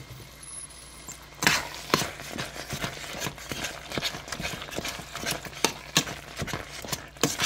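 Metal spoon stirring thick quince jam in a stainless steel pot, clacking and scraping against the pot's sides and bottom. An irregular run of knocks, several a second, starts about a second and a half in.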